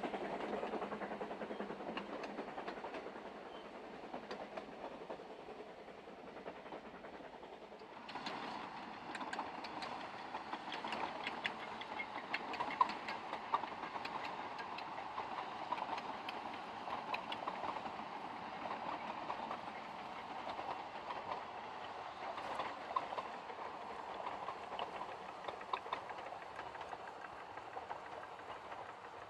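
Narrow-gauge steam train passing, the carriage wheels clicking over the rail joints. It is softer for the first few seconds, then about eight seconds in a closer train runs by with frequent sharp wheel clicks.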